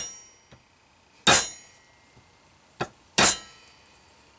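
A hammer tapping bent flatware down against the bending tool through a cloth: three taps, the middle one lighter, each leaving a short metallic ring. The taps close the tight end bend snug against the roller's back side.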